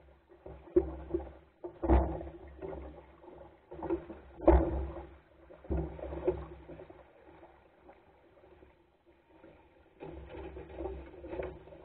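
Water slapping and gurgling against the wooden hull of a small sailing skiff under way, with a few sharp knocks, the loudest about four and a half seconds in. It quietens for a few seconds before picking up again near the end.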